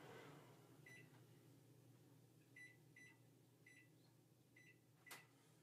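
Faint short electronic beeps from an oven's keypad, about six at irregular spacing, as a bake time is keyed in, with one sharp click near the end.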